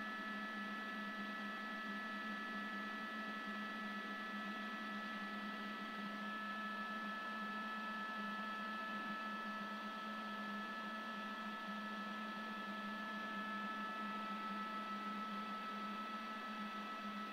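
Steady helicopter cabin noise heard through the onboard microphone: a constant low drone with a thin, steady high whine over a hiss, and one of the high tones drops out about six seconds in.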